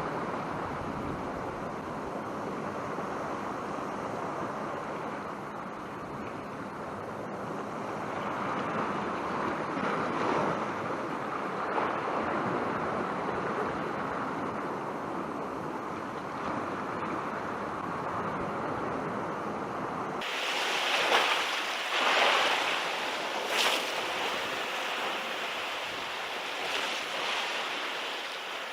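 Sea swell washing and breaking against the rocks, with strong wind buffeting the microphone. About two-thirds of the way through the sound changes abruptly, and after that come several louder surges of surf.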